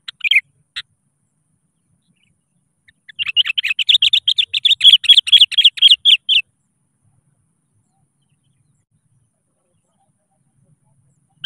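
Sooty-headed bulbul (kutilang) calling: a few short notes at the start, then, about three seconds in, a fast run of repeated notes, about eight a second, lasting around three seconds, with more calls right at the end.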